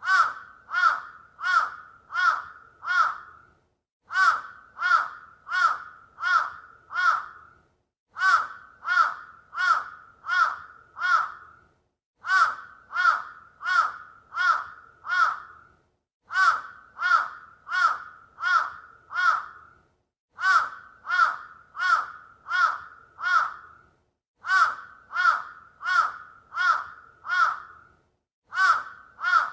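Crow cawing in runs of five harsh caws, each run lasting about three and a half seconds followed by a short gap, and the same run repeating every four seconds as a loop.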